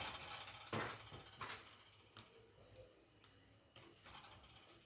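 Faint, irregular ticks and light taps, about six spread out, from a frying pan with burger buns warming in it.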